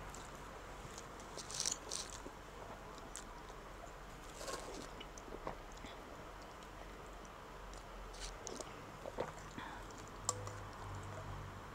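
A person chewing mouthfuls of instant noodles, with scattered short clicks and scrapes of chopsticks and a metal spoon in a ceramic bowl.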